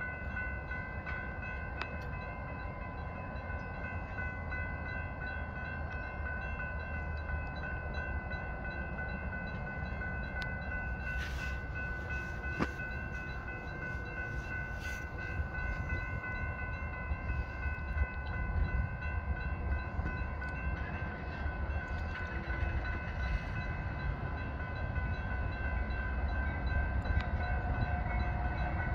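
Railroad grade-crossing warning bell ringing steadily while the low rumble of an approaching train grows louder toward the end.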